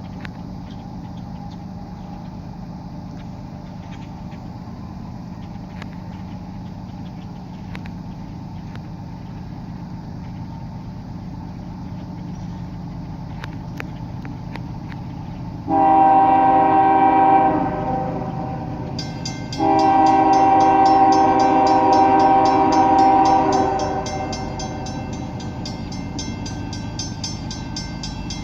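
CSX freight train locomotives rumbling steadily, with the train horn sounding two blasts past the halfway point, a short one and then a longer one. A fast, even metallic ticking joins at about the same time as the second blast and keeps on to the end.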